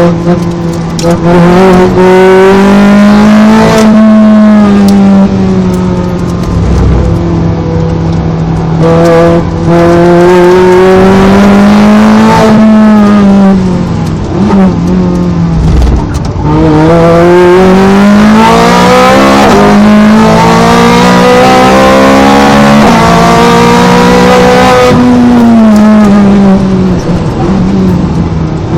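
Ferrari 430 Scuderia's 4.3-litre V8 at full throttle on track, heard from on board: the engine note climbs and falls repeatedly as it pulls through the gears and drops back under braking and downshifts.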